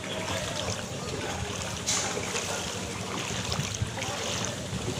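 Floodwater sloshing and splashing as people wade knee-deep and push a small rescue boat through a flooded street, a little louder about two seconds in.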